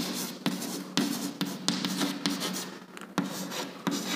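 Chalk writing on a blackboard: an irregular run of short scratching strokes and taps as words are written out.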